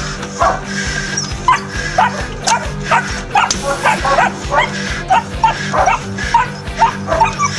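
Puppy barking excitedly in a quick string of short, high yaps, two or three a second, while it plays at chasing a rag toy, with background music underneath.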